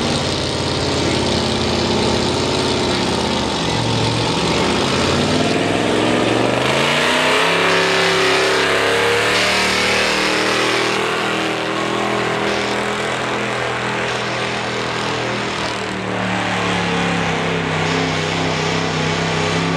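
Stock gas engine of a late-1970s Ford F-series pickup running hard under full load while dragging a weight-transfer pulling sled. Its pitch dips about four seconds in, then climbs again and holds, with another change in pitch near the end.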